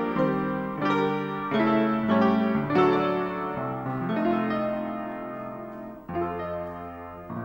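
Solo piano playing slow chords, each one struck and left to ring, with a new lower chord about six seconds in.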